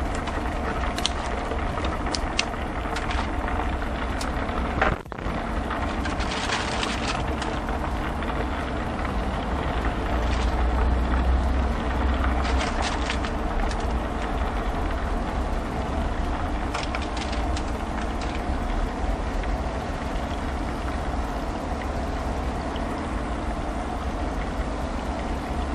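A fresh batch of chicken wings deep-frying in hot oil in a cast iron pot: a steady bubbling sizzle with scattered sharp crackles and pops, over a steady low rumble. The sound breaks off briefly about five seconds in.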